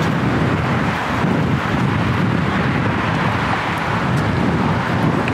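Steady road traffic from a busy multi-lane highway below, mixed with wind buffeting the microphone.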